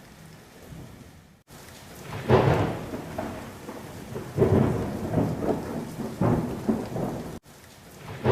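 Thunderstorm: steady rain with rolling thunder, loudest about two seconds in and again around four and a half seconds. The sound cuts out abruptly for a moment twice.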